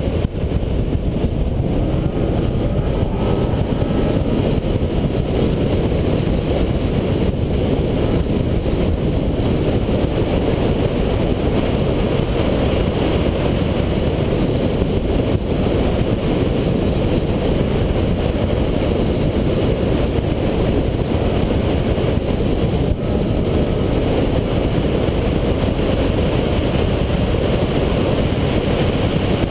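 A car driving at speed through an autocross course, heard through a hood-mounted camera's microphone: a steady rush of wind buffeting the microphone, with engine and road noise underneath.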